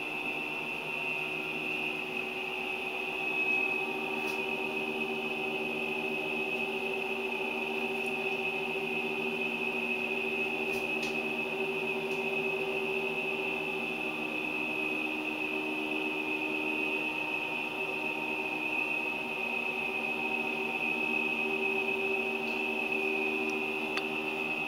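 Steady mechanical hum with a high-pitched whine, unchanging throughout, with a few faint clicks.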